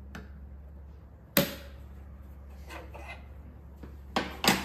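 Sharp knocks and clacks of tools and parts being handled on a benchtop router table while the bit is set up: one hard knock about a second and a half in, a few light clatters, then two knocks close together near the end.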